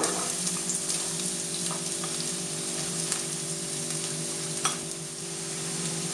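Diced onion sizzling steadily as it goes into hot vegetable oil in a frying pan, with a few light clicks of a spatula scraping it in from a bowl.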